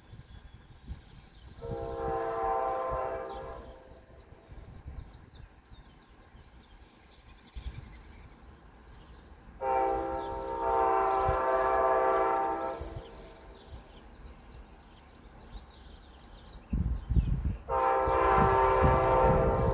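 Amtrak locomotive's chime air horn sounding three blasts several seconds apart, the second the longest, as the train approaches out of sight. A low rumble of the oncoming train comes up shortly before the third blast.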